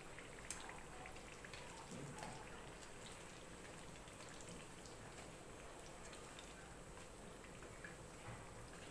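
Hot oil sizzling faintly and steadily around taro cakes frying in a wok, with a few light clicks of metal tongs against the wire strainer, one sharper click about half a second in.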